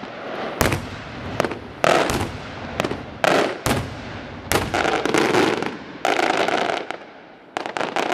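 Traditional Maltese daytime aerial fireworks shells bursting one after another: loud bangs about once a second, each trailing off into a rumbling echo, with a quick flurry of reports near the end.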